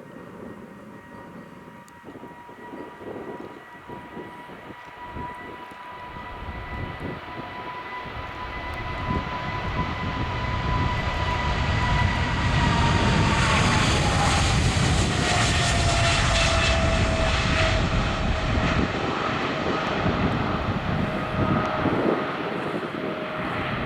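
Boeing 777-200's twin GE90 turbofan engines at takeoff thrust, the noise building steadily to a peak as the jet passes. A high engine whine holds steady, then drops in pitch partway through as the aircraft goes by.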